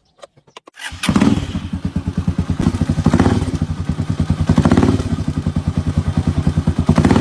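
Motorcycle engine that comes in suddenly about a second in and runs with an even, rapid firing pulse, revved briefly about four times.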